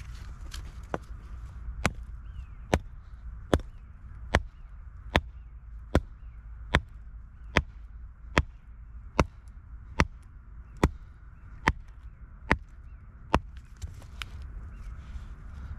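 Steel rock hammer striking a hand-held block of rock, about fifteen sharp, evenly spaced blows a little under one a second, splitting it open to look for ammonite fossils. The blows stop about two seconds before the end.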